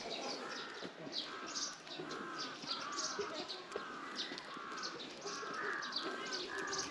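Small birds chirping: a busy run of short high notes, with a lower warbling phrase repeated about twice a second.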